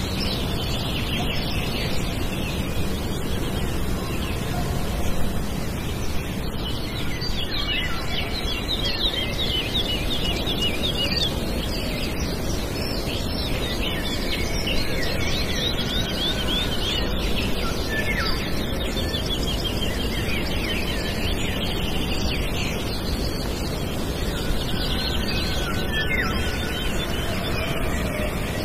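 Small songbirds singing and twittering, with repeated rapid trills, over a steady low background rumble.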